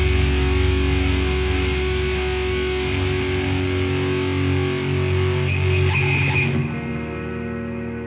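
Instrumental post-metal played by a live band: a dense wall of distorted guitar, bass and cymbals rings out and slowly dies away. About six and a half seconds in, the heavy sound drops out, leaving clean electric guitar notes ringing on.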